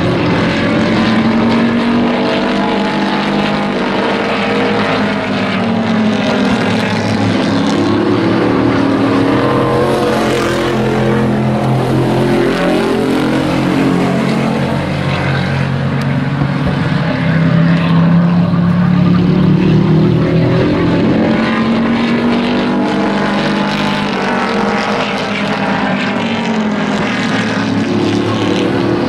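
Engines of several racing pickup trucks running hard together, their pitch rising and falling over and over as they accelerate down the straights and lift for the turns.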